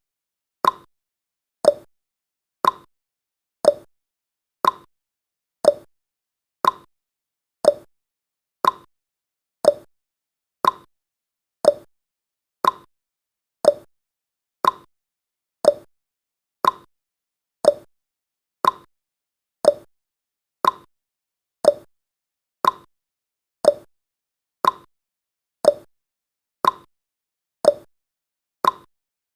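Clock tick-tock sound effect of a countdown timer: one short, sharp tick every second, alternating between a higher and a lower tick.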